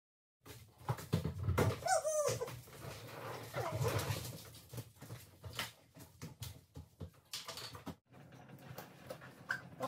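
A small dog whining, with a falling whimper about two seconds in and another near four seconds, among scattered clicks and knocks.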